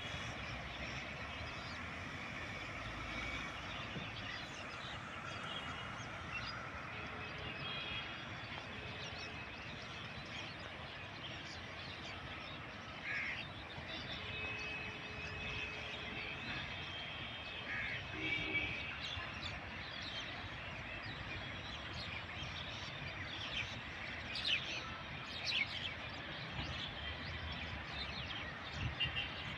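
Mynas chirping and calling in short scattered notes over a steady outdoor background hiss, with a few sharper short sounds near the end.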